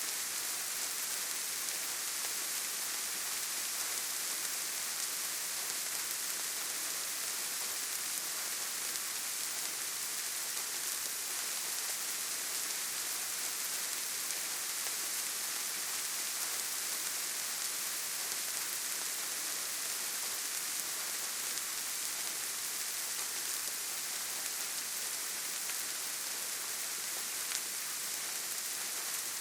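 Steady rain falling softly, an even high hiss of drops pattering on leaves and ground.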